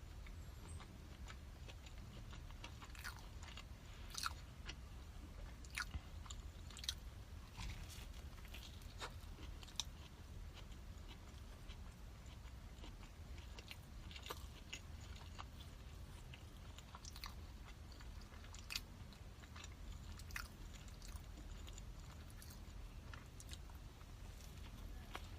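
A person chewing and biting food close to the microphone, with scattered crisp crunching clicks.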